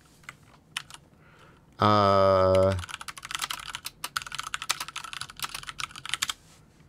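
Typing on a computer keyboard and clicking a mouse: a few scattered clicks, then a fast run of keystrokes lasting several seconds. About two seconds in, a loud steady low buzzing tone sounds for about a second.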